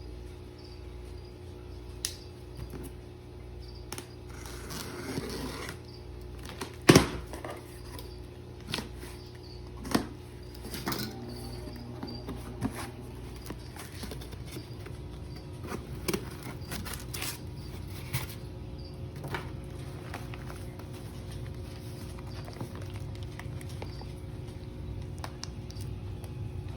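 Scattered knocks, clicks and a brief rustle of a shipping box and its packaging being handled and opened, over a steady low hum. The loudest knock comes about seven seconds in.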